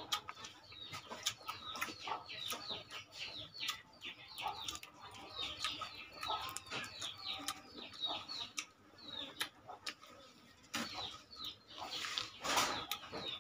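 Chickens clucking in the yard, with a steady run of short, high, downward-sliding chirps repeating over and over, and a brief louder noisy burst near the end.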